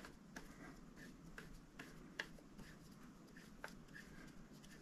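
Faint, irregular small metal clicks of a T-handle wrench being worked on engine bolts, with a couple of slightly louder ticks about two and three and a half seconds in.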